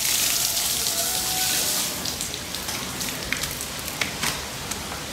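Rain falling on a wet stone terrace floor, a steady hiss that eases about two seconds in, with a few separate drops ticking near the end.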